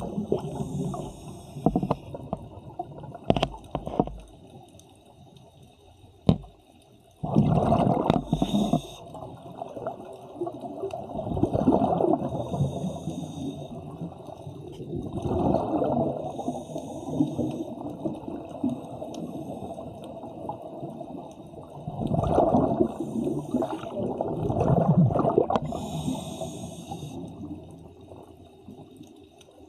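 Underwater recording of scuba divers breathing through regulators: muffled surges of exhaled bubbles gurgling every few seconds, each with a brief higher hiss. A couple of sharp knocks sound in a quieter stretch a few seconds in.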